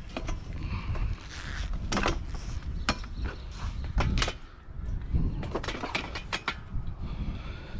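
Irregular knocks, clacks and scrapes from hard objects being handled and moved, over a low rumble throughout.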